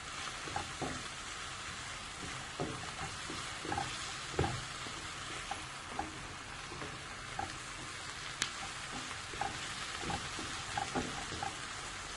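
Chopped onion, carrot and capsicum frying in a pan with a steady sizzle, stirred with a spoon that scrapes and taps against the pan at irregular intervals.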